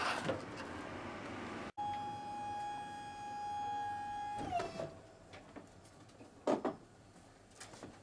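A truck tail lift's electric hydraulic pump motor runs with a steady whine as it raises the platform carrying a blanket-wrapped upright piano. About four and a half seconds in the motor stops, its pitch dropping as it winds down. A stretch of noise before it cuts off abruptly, and a single knock comes near the end.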